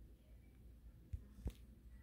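Near silence: faint room tone, with two soft taps a little after the first second.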